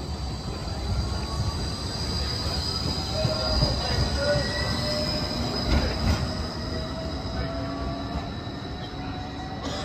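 G:link light-rail tram pulling away from the stop over a low rumble, with a whine slowly rising in pitch as it gathers speed and a steady high-pitched tone above it. There is a short knock about six seconds in.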